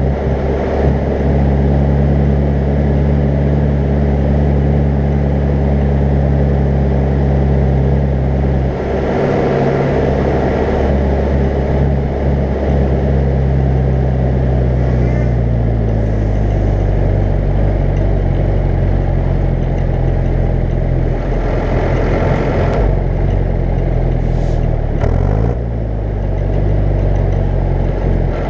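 Zetor 10145 tractor's diesel engine running steadily under way while towing a loaded slurry tanker, heard from the cab. Its pitch drops about halfway through as it slows, and a few short rushes of louder noise break in over it.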